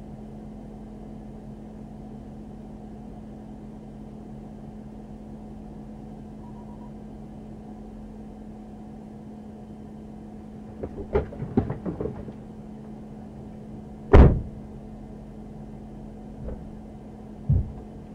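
Steady low hum of the idling patrol car, then a scuffle against its hood: a cluster of knocks and thuds about eleven seconds in, one loud sharp bang a few seconds later, and two smaller thumps near the end.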